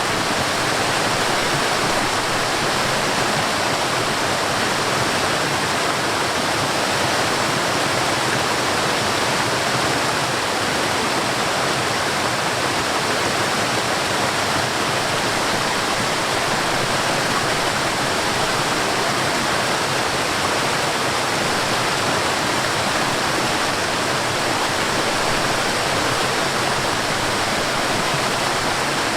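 Mountain stream waterfall: water rushing in a steady, unbroken hiss that does not change throughout.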